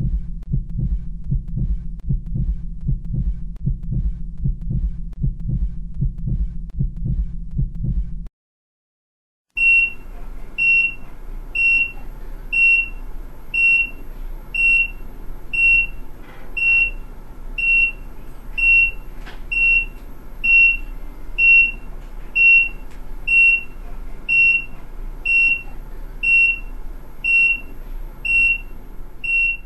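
Heartbeat sound effect: low, rhythmic pulsing heartbeats for about eight seconds. After a brief silence, a hospital heart monitor beeps a single high tone a little more than once a second over faint steady operating-room background noise.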